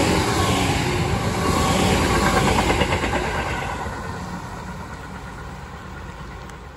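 Tobu Railway 6050-series electric train running close past, its wheels clattering rhythmically over the rail joints, then fading as it moves away.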